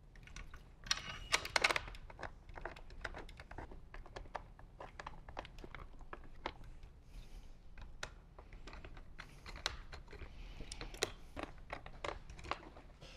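Faint, irregular small clicks and rattles of bolts being hand-started into a plastic motorcycle fairing speaker pod, with plastic parts and wiring being handled; a denser cluster of clicks comes about a second in.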